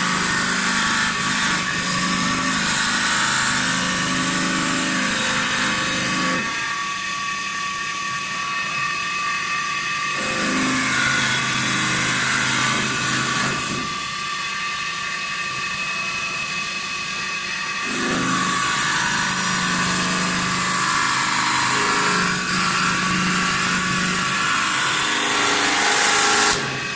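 CNC wood turning lathe running, a steady machine whine with a hiss of wood being cut. The sound shifts abruptly in level and character several times.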